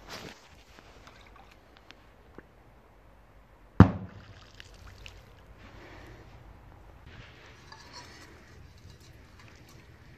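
Triplex TXP384 Thunder Crackling firecracker going off with a single sharp bang about four seconds in, followed by a short low rumble.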